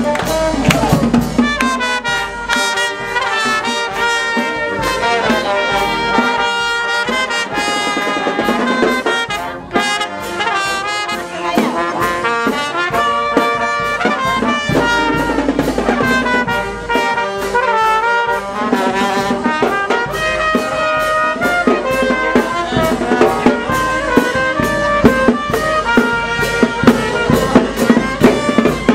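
Brass marching band playing a tune on trumpets and trombones, backed by drums. The drum strokes grow louder near the end.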